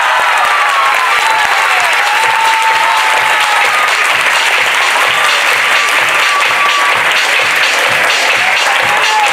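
Audience applauding loudly and steadily, with background music underneath; a steady beat comes in about halfway through.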